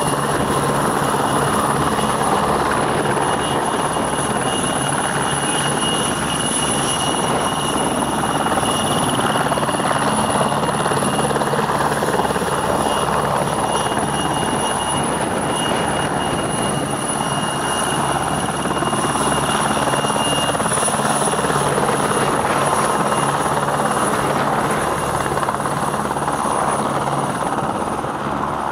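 Military helicopter's turbine engines and main rotor running steadily as it taxis along the runway. A steady high turbine whine sits over the rotor noise.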